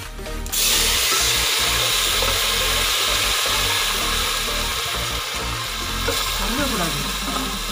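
Garlic, curry leaves and seeds sizzling in hot oil in an aluminium pot: a steady frying hiss that starts about half a second in.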